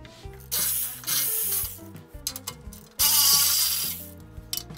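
Background music with a stepping melody, over bursts of rapid mechanical clicking from a ratchet wrench being worked on the underside of the truck, about half a second in and again about three seconds in.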